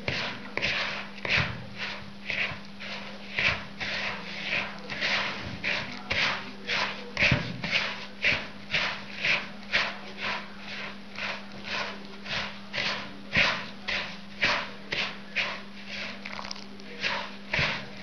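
Mixing a crumbly biscuit-and-fat dough in a bowl to bring it together: rhythmic rubbing and scraping strokes, about two a second, over a steady low electrical hum.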